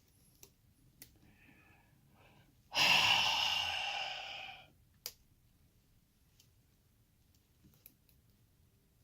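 A long, frustrated sigh of about two seconds, starting about three seconds in and trailing off, with a few faint clicks before and after it.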